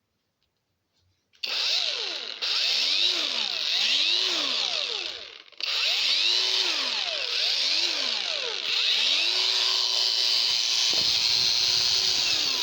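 Portable electric angle grinder switched on and running with nothing against the disc. Its high motor whine rises and falls repeatedly, cuts out briefly about four seconds after starting, then starts again and keeps running.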